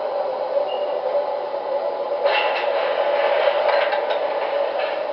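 MTH O-gauge R-26 model subway train running on the layout: a steady hum, joined about two seconds in by a run of rattling clatter.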